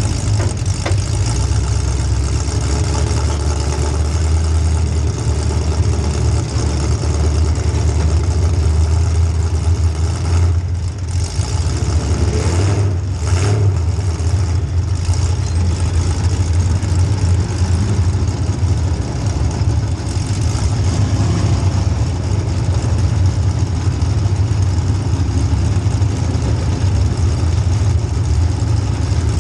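Demolition derby car's small-block Chevy V8 running steadily at a low idle, with a few brief changes about a third of the way through.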